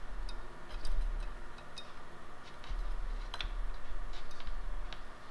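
Scattered light clicks and ticks of a ground lead's metal tip being worked under the rubber anode cap of a CRT to discharge the high voltage, over a low rumble. There is no spark snap, as hardly any charge is left on the anode.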